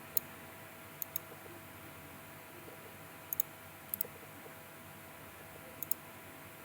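Computer mouse clicks, a handful of short sharp ones, mostly in quick pairs about a second or two apart, over a faint steady hum.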